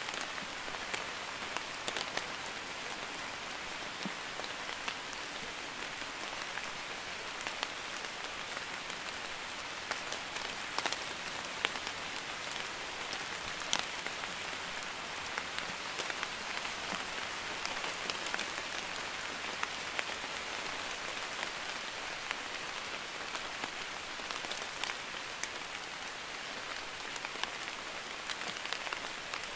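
Light rain (drizzle) falling steadily: an even hiss with many single drops tapping sharply at irregular moments.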